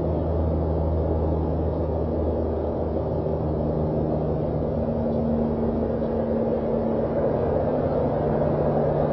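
A steady low mechanical hum with a few faint steady tones in it, running evenly and without breaks.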